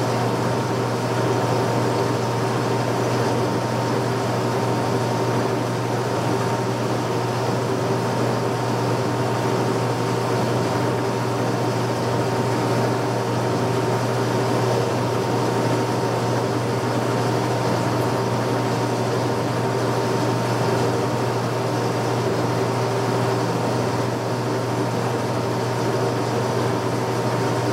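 Steady mechanical hum of a running horizontal boring mill and its rotary phase converter, with a deep low hum and a faint steady whine above it, unchanging throughout.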